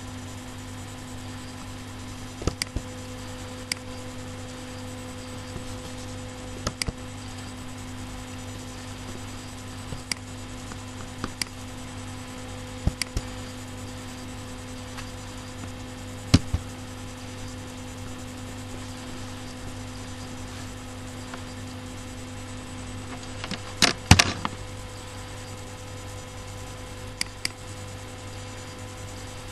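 Computer mouse clicking every few seconds over a steady low electrical hum, with a short burst of louder clicks about three quarters of the way through.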